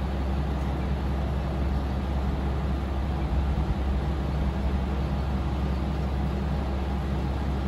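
A steady low mechanical hum with a constant rumble of background noise, unchanging throughout.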